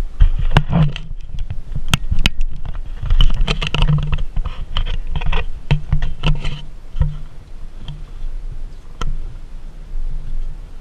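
Outrigger motorboat's engine running at low speed, with a steady low throb, while sharp knocks and clatter sound over it.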